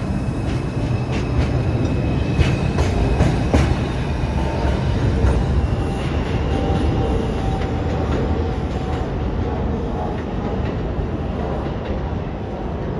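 New York City subway train running along the track, with a continuous rumble, wheels clacking over rail joints in a run of sharp clicks during the first four seconds or so, and a faint steady whine.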